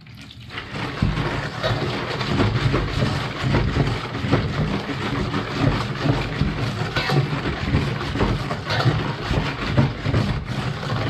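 Wire balloon whisk beating a runny mocha cake batter in a large stainless-steel bowl, the wires rattling and scraping against the metal in a rapid, steady clatter. A short pour of milk into the bowl comes just before the whisking starts.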